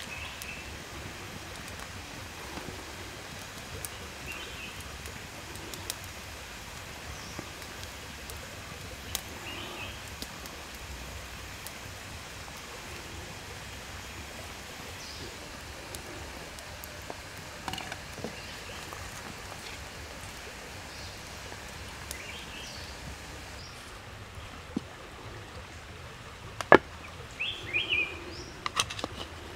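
Steady soft hiss of a clay pot of soup simmering over a wood fire, with scattered faint chirps and clicks. Near the end come a few sharp clicks and knocks, one of them loud.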